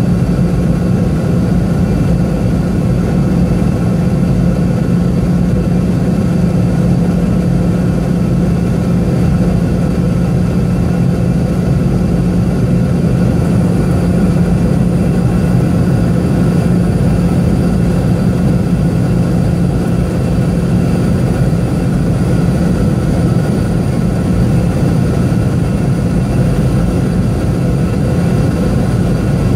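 Steady cabin noise of a Boeing 717-200 on descent: an even roar of airflow and the drone of its rear-mounted Rolls-Royce BR715 turbofans, with a steady low hum underneath.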